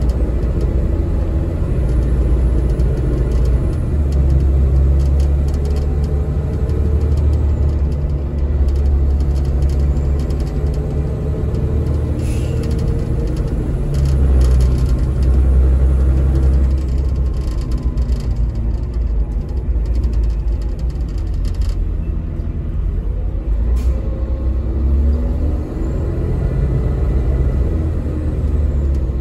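Caterpillar diesel engine of a Denning Phoenix low-floor bus heard from inside the passenger cabin, a steady low rumble whose pitch rises and falls as the bus speeds up and slows. A few brief clatters come partway through.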